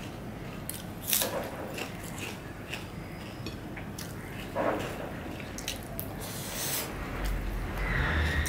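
Eating with the fingers: a hand mixing and squishing chicken bhuna khichuri on a plate, with scattered short wet clicks and smacks, the loudest about a second in and another at about four and a half seconds. A low rumble comes in near the end.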